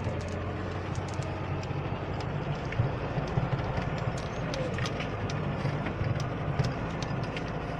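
Car engine running steadily while driving over rough snowy ground, heard from inside the cabin, with frequent small knocks and rattles from the bumpy ride.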